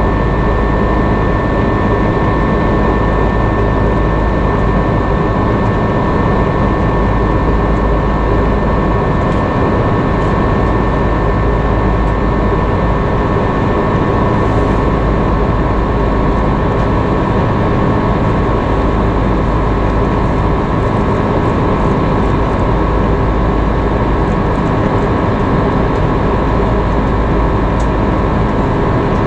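Steady cabin noise inside an Airbus A330-300 in flight: engine and airflow noise with a thin, high steady whine running through it.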